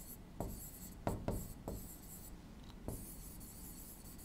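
A marker writing on a board: faint short scratches and taps as letters are written, several in the first two seconds, then sparser.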